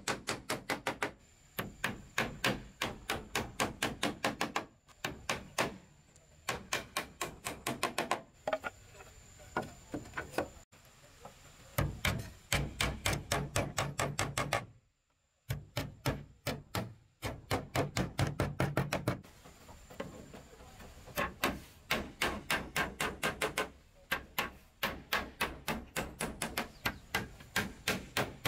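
Claw hammer driving nails into wooden boards: runs of quick, even blows, several a second, broken by short pauses.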